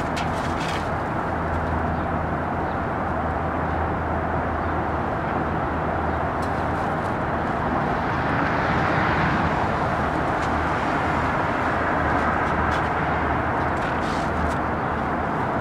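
Steady city street noise with distant traffic and a low hum, swelling a little about eight seconds in.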